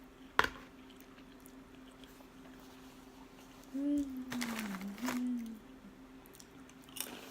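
Mouth sounds of eating noodles close to the microphone, with a sharp knock about half a second in and a hummed "mm" that slides down and back up in pitch around the middle, with a wet slurping noise over it.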